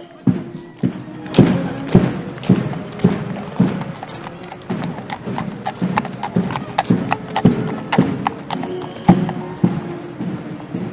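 Trumpet fanfare sound effect: held brass notes over a steady run of sharp knocks like hoofbeats, about two a second at first and quickening about four seconds in.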